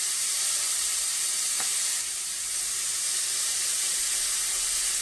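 Marinated chicken thighs sizzling steadily on the hot non-stick die-cast aluminum grid of a Philips Smoke-less infrared indoor grill running at 450°F.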